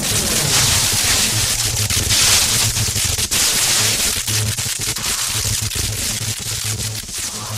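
Electric discharges sparking: a dense crackling hiss full of sharp snaps, over a steady low electrical hum. It grows somewhat quieter near the end.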